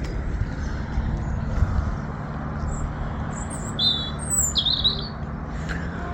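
Small birds chirping in short calls, a few of them clustered a little before the end, over a steady low rumble.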